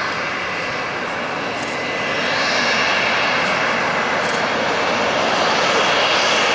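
Turbofan engines of taxiing jet airliners running at low power: a steady rushing noise with a faint thin whine, growing louder about two seconds in.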